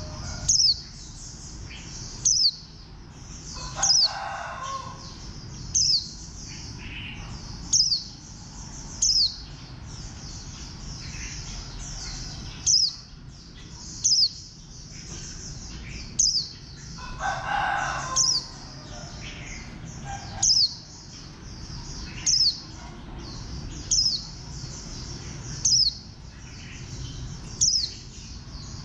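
White-eye (vành khuyên) singing a continuous high twittering song, broken about every two seconds by a loud, sharp note that slurs downward. A lower call sounds twice in the background, once early and once past the middle.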